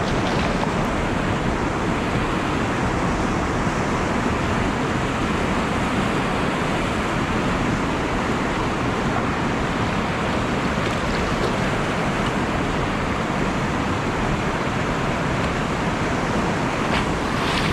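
Steady rushing of whitewater in a river rapid, an even, unbroken noise with no distinct splashes standing out.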